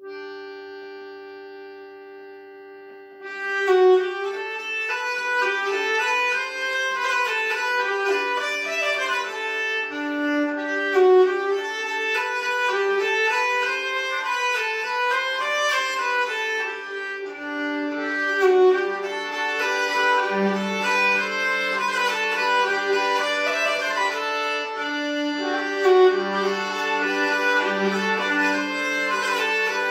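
Nyckelharpa and piano accordion playing a Swedish polska together, the bowed melody running over a steady drone. A held chord sounds first, and the tune starts about three seconds in.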